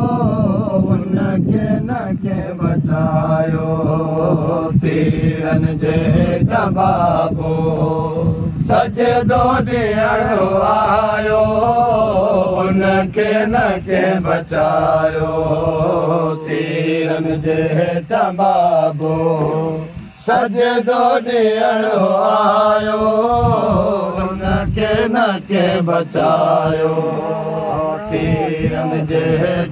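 A group of men chanting a Sindhi noha, a Muharram mourning lament, in a sung refrain over a steady held low tone, with chest-beating (matam) slaps through it.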